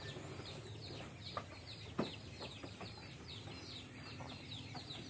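Birds peeping: short, high, falling chirps about three times a second, over a steady high whine, with a couple of faint knocks.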